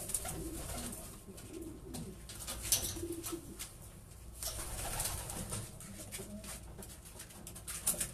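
Racing pigeons cooing, with a few brief flurries of wingbeats as birds take off and land.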